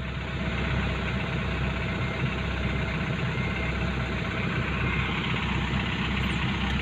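Heavy diesel engine running steadily at idle with a low rumble.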